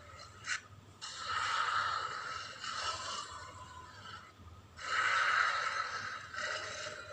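Designed Allosaurus sound effect: four breathy, hissing snorts, each about a second and a half long, the loudest about five seconds in. A short click comes about half a second in.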